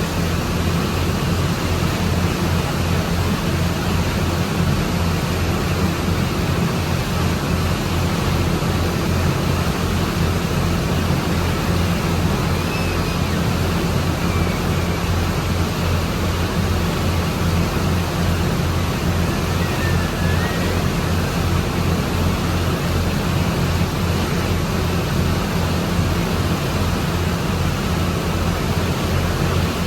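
Boat engine running steadily: a constant low pulsing drone under an even rush of water and wind noise.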